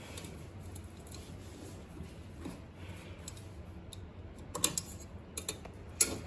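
Small metal parts of a gas stove being handled during repair: a few light, sharp clicks and taps in the second half, the loudest near the end.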